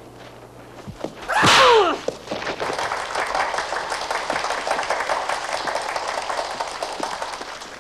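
A loud, brief shout falling steeply in pitch about a second and a half in, followed by a steady crackling clatter like applause that fades near the end.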